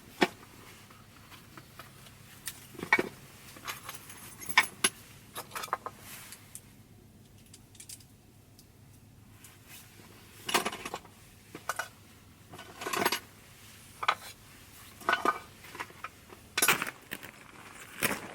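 Small metal objects clinking and rattling as they are handled, in scattered clusters of sharp, lightly ringing clicks with a quiet stretch in the middle.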